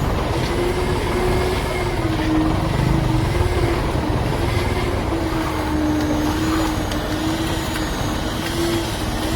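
A motor engine running steadily under load, with a low rumble and a hum whose pitch wavers slightly up and down.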